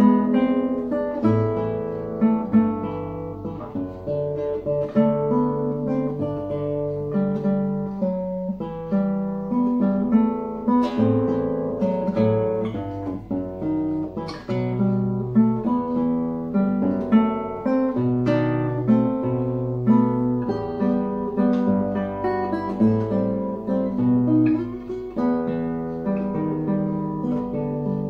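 Solo classical nylon-string guitar played fingerstyle: a steady flow of plucked melody notes over a moving bass line.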